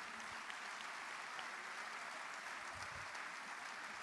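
Audience applauding: a dense, even clatter of many hands clapping at once, holding steady and easing off slightly near the end.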